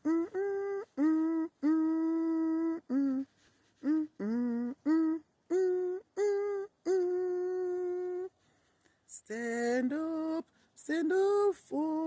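A woman's voice singing or humming a hymn melody unaccompanied, on slow, separately held notes with short breaks between them.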